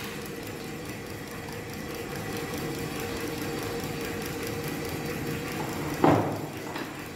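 Steady low mechanical hum, then one sharp knock about six seconds in as a rotary hammer drill is set down on a tabletop.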